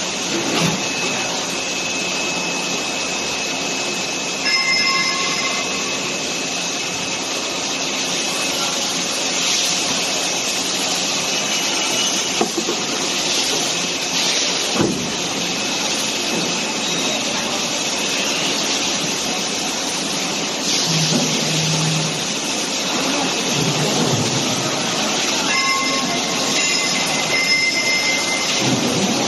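Plastic injection molding machine running through a mold cycle: a steady mechanical hiss and hum. Brief high whines come about five seconds in and again near the end, a low hum rises for a moment about twenty-one seconds in, and a single click sounds about fifteen seconds in.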